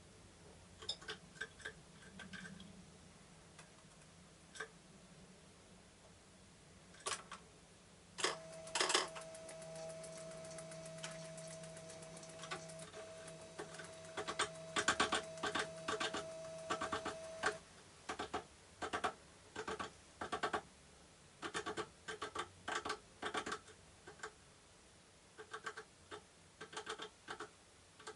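Varied tit pecking with its bill: bouts of sharp taps in quick succession. A steady mid-pitched tone with a low hum beneath it sounds for about nine seconds through the middle.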